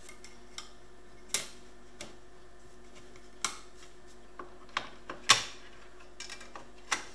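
Light plastic clicks and clacks as a blue plastic CRT filter and its black front bezel frame are handled and fitted together: about ten short taps, with sharper clacks about a second in, a little after three seconds, and the loudest about five seconds in, over a faint steady hum.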